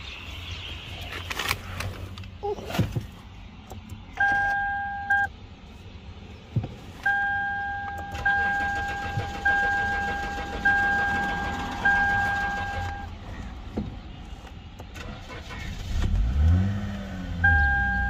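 A 2011 Lexus IS300's engine fires and catches about sixteen seconds in, revs up briefly and settles into a steady idle. It is starting again after a fresh 20 litres of petrol, which bears out fuel starvation from air in the tank as the cause of the crank-no-start. Before that, the car's two-note warning chime beeps repeatedly in about one-second tones.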